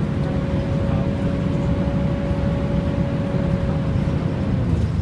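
Volvo B10BLE bus running with its loud engine cooling fan going: a steady low hum with a steady whine over it that fades out about four and a half seconds in.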